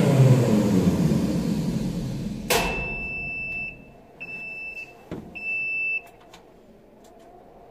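Ship deck crane's motor winding down, its pitch falling as it slows. Then a switch click about two and a half seconds in, and three high beeps from the crane's control panel alarm, each under a second long, with a few small clicks.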